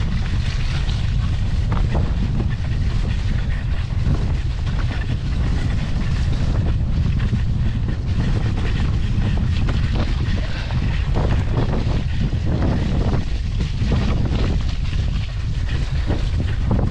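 Wind buffeting a GoPro's microphone as a mountain bike rolls along a rough moorland singletrack: a steady low rumble with scattered knocks and rattles as the bike goes over bumps.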